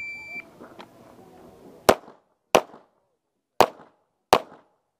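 A shot timer's start beep, then a semi-automatic pistol fired one-handed (strong hand only): four shots in two pairs, each pair about two-thirds of a second apart, every shot with a short echo.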